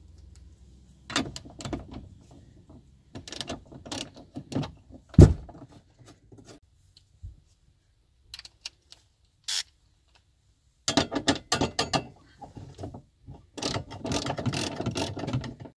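Ratchet wrench and socket undoing the battery hold-down bracket bolts: scattered clicks and one sharp knock about five seconds in, a quiet spell, then runs of rapid ratchet clicking in the second half.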